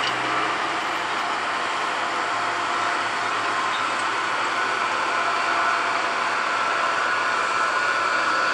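Empty coal train rolling past and away, with the steady running of a CP ES44AC diesel-electric locomotive at the rear of the train mixed with the rumble of wheels on rail.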